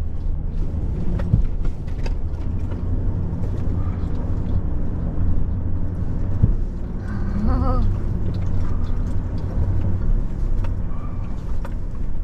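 Truck engine running steadily, with light clicks and rattles. About seven and a half seconds in, a cat meows once, briefly.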